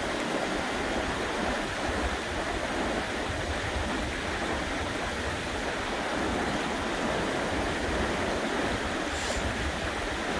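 Fast, shallow river running over a stony bed: a steady rush of water.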